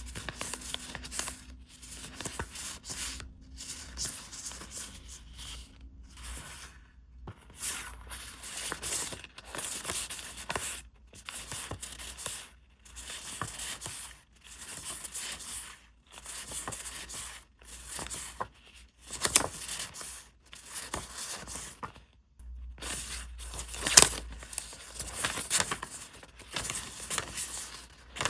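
Packaging being opened by hand: repeated tearing and crinkling of wrappers in short bursts with brief pauses between them, and two louder sharp rips, the second near the end.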